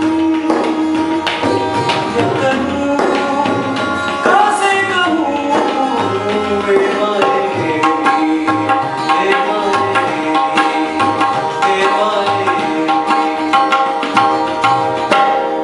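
Tabla and acoustic guitar playing together: the guitar chording a song while the tabla keeps a steady rhythm, its bass drum thumping regularly under sharp treble strokes.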